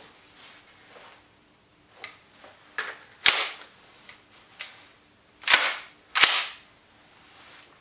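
A few light clicks as the magazine is seated in a WE MSK gas blowback airsoft rifle, then three loud sharp metallic cracks of the rifle's action cycling. The second and third cracks come less than a second apart.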